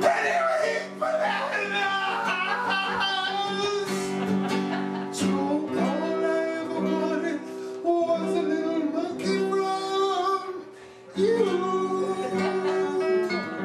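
A song: a voice singing over strummed guitar chords, with a short drop in level about ten and a half seconds in.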